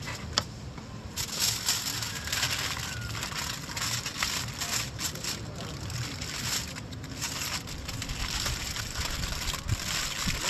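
Aluminium foil crinkling and crackling as it is folded by hand around pieces of marinated chicken, starting about a second in and coming and going in waves.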